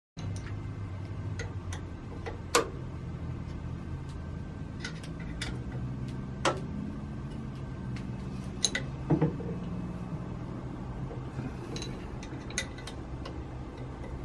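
Metal lathe running with a steady low hum, with scattered sharp metallic clicks and taps over it, the loudest about two and a half seconds in and again near the middle.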